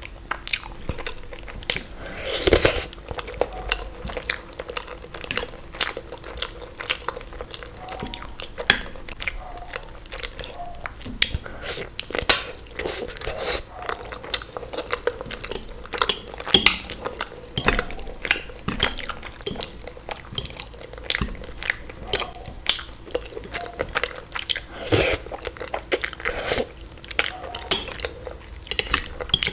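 A person eating: chewing and crunching mouth sounds with frequent irregular clicks, mixed with cutlery clinking against dishes.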